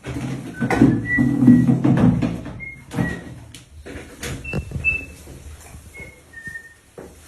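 A person whistling a string of short, separate high notes at varying pitches, over knocking and rustling handling noise that is heaviest in the first three seconds.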